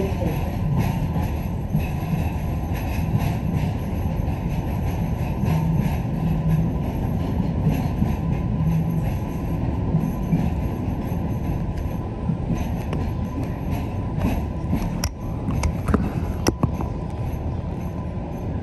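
MBTA Green Line light-rail car running through the subway tunnel, heard from inside the car as a steady low rumble. A few sharp clicks come near the end.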